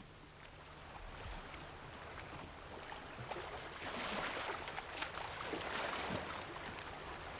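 Wind and water noise with a faint, steady low hum underneath, swelling a little in the middle.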